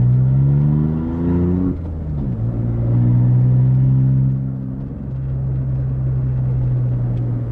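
VW Up TSI's 1.0 turbo three-cylinder engine running through a straight pipe with the exhaust silencers removed, heard from inside the cabin. Its revs climb for almost two seconds, drop sharply, climb again, then hold steady for the last few seconds.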